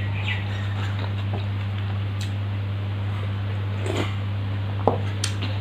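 Steady electric fan hum with a low drone, and scattered short, soft eating noises over it: chewing and mouth clicks from eating rice and fried food by hand.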